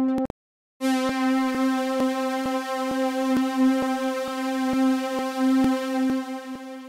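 Omnisphere 3 software synthesizer sounding a single held note with rich overtones: a short note cut off just after the start, then the "Espresso CS String Stack" synth-string patch coming in and sustaining, fading near the end. Light regular clicks run through it about twice a second.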